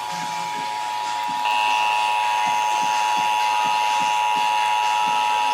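Emergency Alert System attention signal: a steady two-tone buzz, played over radio broadcast, that comes in louder about a second and a half in. It is the alert that comes before a Required Monthly Test announcement.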